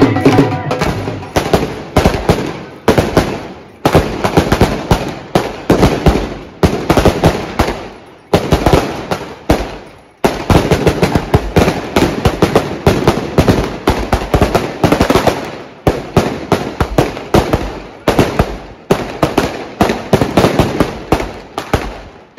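Firecrackers going off in rapid volleys of loud, sharp cracks, many a second, with a few brief pauses between volleys.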